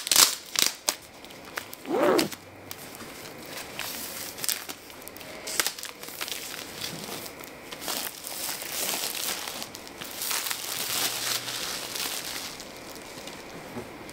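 Plastic shrink-wrap being torn and peeled off a vinyl record sleeve: a few sharp rips at first, a short squeak about two seconds in, then steady crinkling of the loose plastic that stops a little before the end.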